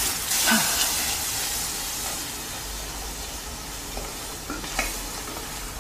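Toffee sauce of butter, golden syrup and freshly added cream boiling hard in a steel saucepan: a steady hiss and sizzle of bubbling that slowly gets quieter.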